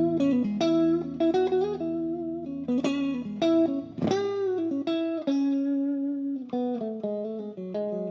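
Tokai Silver Star TSS-38 electric guitar playing a picked single-note line, with a note bent up and back about four seconds in.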